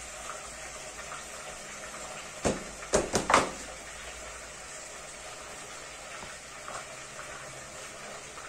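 Kitchenware clattering while food is dished out: four sharp knocks, one about two and a half seconds in and three close together about half a second later, over a steady low hiss.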